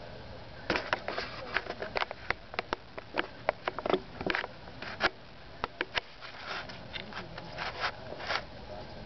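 An irregular run of short, sharp clicks and scrapes, several a second, starting about a second in and stopping shortly before the end.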